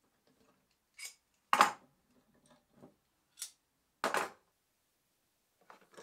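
Steel bar clamps clinking and clattering as they are released and set down on a wooden workbench. There are about six separate knocks, and the loudest two come about a second and a half in and about four seconds in.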